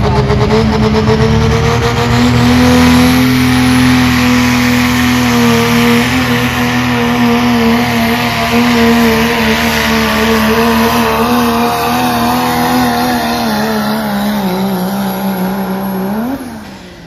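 Diesel pickup truck engine at full throttle on a truck pull. Its pitch climbs over the first couple of seconds, holds, then sags slowly under the load, with a faint high whistle over it. Near the end it blips up briefly, then drops off sharply as the throttle comes off.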